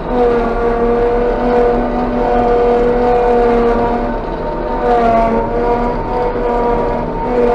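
Claas Jaguar 830 forage harvester heard from inside its cab, its engine and chopping drum running steadily under load with a whine of several steady tones as it picks up and chops a windrow of dry grass. The pitch sags briefly about five seconds in and comes back up.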